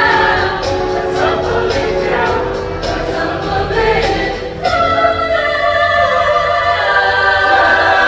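Large mixed show choir singing with instrumental accompaniment over a steady beat. About halfway through, the beat drops out and the choir holds a long sustained chord.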